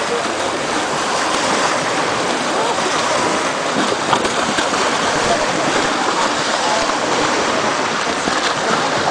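Shallow seawater splashing and churning steadily as stingrays flap their wings at the surface around a person's legs, over the wash of the sea.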